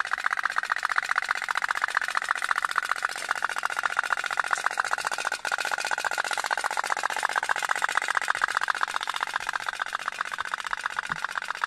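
Toy pop-pop (otok-otok) steam boat running, its candle-heated tube engine making a fast, even putt-putt of rapid pops.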